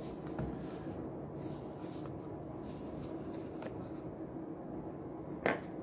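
Hands turning over and handling a small cardboard box: faint rubbing and scraping of fingers on cardboard, with a single sharp tap near the end.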